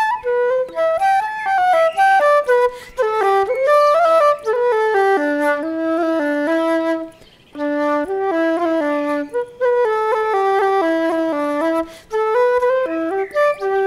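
Background instrumental music: a melody over a lower second part, moving note by note, with a brief pause about seven seconds in.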